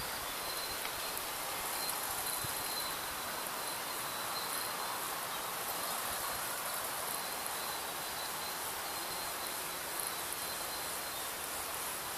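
Steady high-pitched chirring of insects such as crickets or grasshoppers in open grassland, with a faint even hiss behind it.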